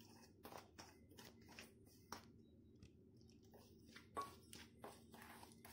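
Faint, irregular crunching and scraping strokes of raw rice flour being mixed with hot water by hand in a stainless steel bowl.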